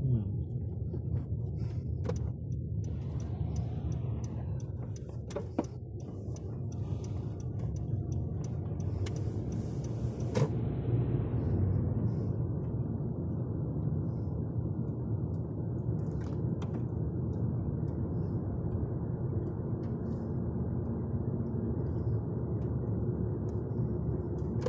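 Steady road rumble of a car driving on snowy roads, heard from inside the cabin: engine and tyre noise. A few clicks and knocks come in the first several seconds, and a higher hiss joins the rumble for several seconds before stopping suddenly about ten seconds in.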